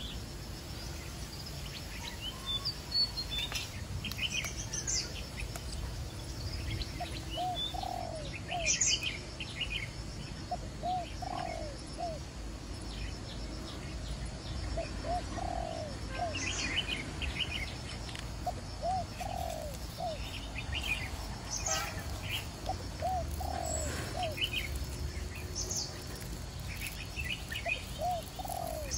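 Birds calling: a low phrase of two or three rising-and-falling notes, repeated every three to four seconds, over scattered short, higher chirps from small birds.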